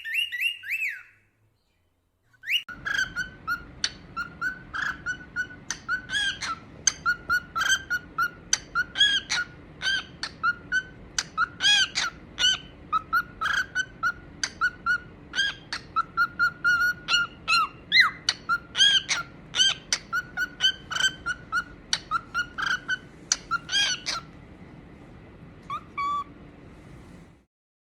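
Cockatiel whistling a fast string of short repeated chirps, about three a second for some twenty seconds, after a brief whistle at the start.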